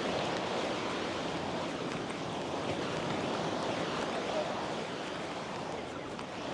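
Small waves breaking and washing up onto a sandy beach: a steady rush of surf.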